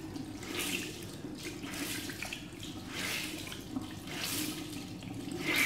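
Tap water running into a sink while a soaked makeup sponge is squeezed and rinsed under the stream. The splashing gets louder several times as the water is pressed out.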